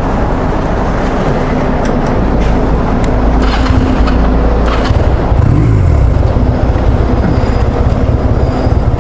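Motorcycle engine idling, with a few sharp clicks in the first half. From about five seconds in, the throttle is blipped several times, the engine pitch rising and falling.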